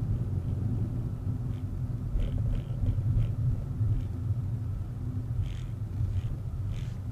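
Low steady rumble of a Volkswagen Vento's 1.2 TSI turbocharged four-cylinder petrol engine and road noise, with a few faint ticks.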